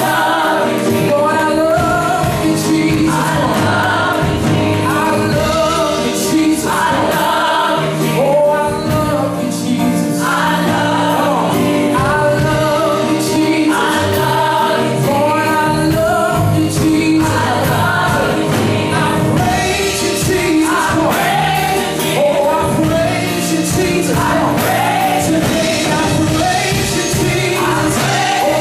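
Gospel praise-and-worship music: a group of voices singing together over band accompaniment, in phrases of a few seconds each.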